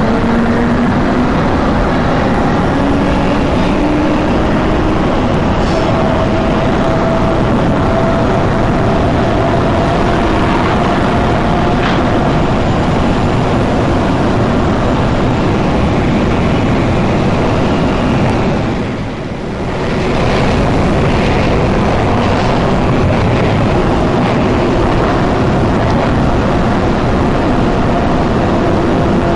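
Electric metro train running, heard from inside the passenger car: steady rumble and rail noise with a motor whine that climbs slowly in pitch. The noise dips briefly about two-thirds of the way through.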